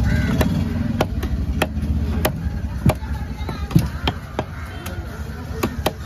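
Heavy fish-cutting knife striking a wooden log chopping block as a large fish is cut into chunks: sharp, irregular knocks, about two or three a second.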